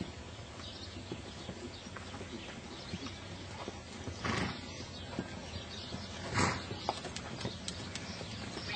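Hoofbeats of a ridden horse moving over the sand footing of an arena, with two louder noisy sounds about four and six and a half seconds in.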